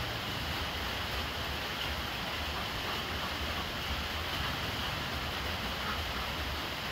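Steady rain falling onto a brimming water jar and the ground around it, with a thin stream of rainwater from a PVC downpipe splashing below. A low rumble sits underneath.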